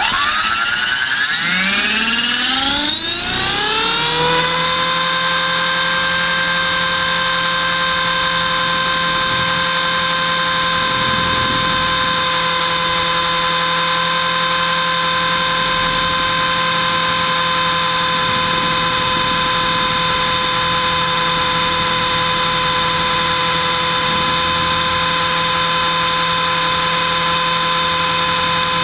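Electric RC helicopter, a T-Rex 450 clone, spooling up and flying, heard from on board: the motor and rotor whine rises steeply in pitch for about four seconds, then holds one steady high whine at flying head speed.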